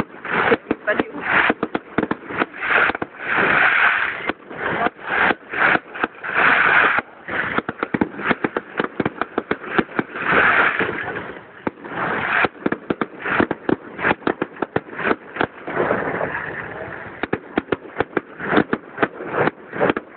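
Public fireworks display: a rapid, dense barrage of bangs and crackles from aerial fireworks, many per second, with a few longer stretches of continuous crackling.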